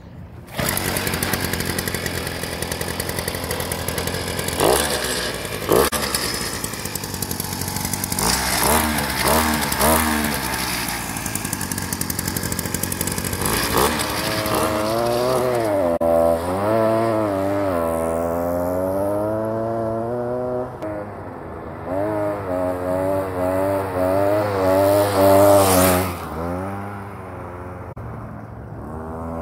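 Two-stroke 50cc gas scooter engine starting about half a second in, then running and revving up and down while riding over dirt, its pitch rising and falling. It is loudest near the end, then quickly falls away.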